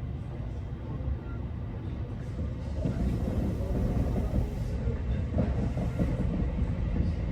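Kintetsu electric train rumbling past on the tracks, growing louder about three seconds in, with wheel clatter over the rail joints.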